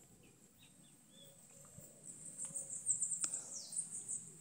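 Faint high-pitched animal chirping: a quick run of short chirps from about two seconds in, lasting about two seconds and ending in a falling note, over a faint steady high hum. A single sharp click partway through.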